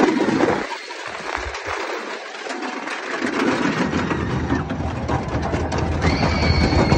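1921 wooden roller coaster train running along its wooden track. A rush of wind at the start eases for a few seconds, then a low rumble of the wheels on the track builds from about four seconds in as the train swings into a banked curve. A thin, steady high tone joins near the end.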